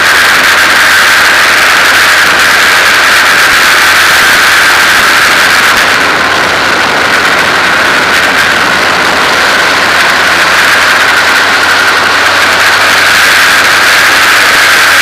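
Formula 2000 race car's engine running loud and steady, heard from on board under a heavy hiss, easing slightly for a couple of seconds about halfway through.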